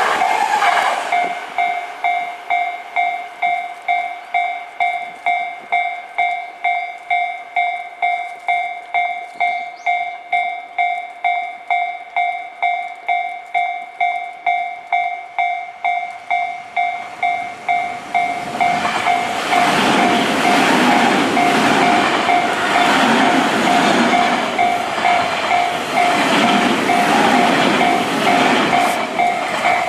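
Japanese level-crossing warning bell ringing steadily at about two dings a second. The tail of one passing train dies away in the first second. From about 18 s a Tobu 30000 series electric train runs over the crossing, its rolling noise rising over the bell.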